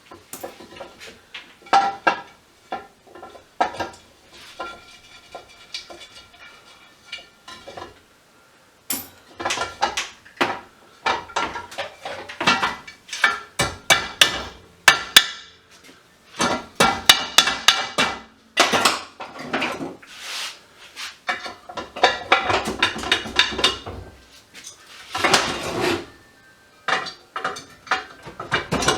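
Small metal parts being handled and dropped into a container, with many short, irregular clinks and rattles. The clinks come sparsely at first and grow busier after about nine seconds.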